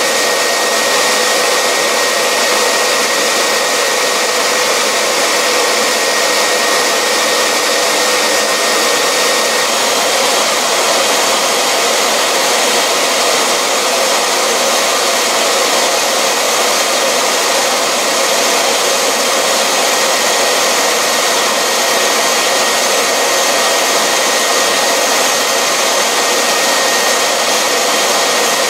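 Dumore 44 tool post grinder running at speed while its wheel is dressed with a diamond, together with a hoover extracting the dressing dust. The result is a steady high whine over a constant rush of air.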